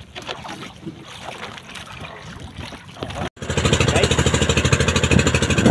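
Faint water sounds, then, after a sudden cut just past three seconds in, an outrigger fishing boat's engine running loud with a fast, even chug.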